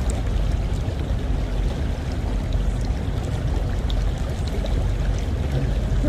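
Small creek flowing: a steady rushing of water with a strong low rumble underneath.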